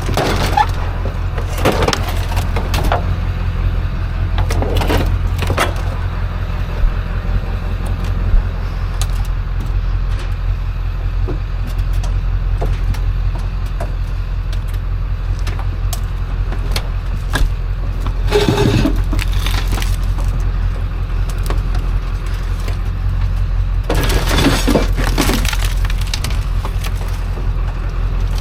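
A load of scrap metal crashing and clattering in several bursts, the loudest about 18 seconds in and again about 24 seconds in, over a steady low engine hum.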